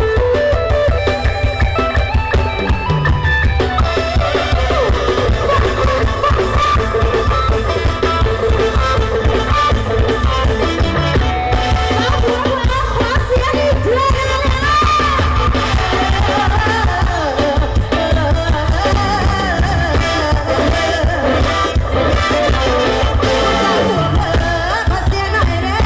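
Live stage band played loud through PA speakers, with a heavy bass and drum beat and electric guitar, while a singer sings into a microphone.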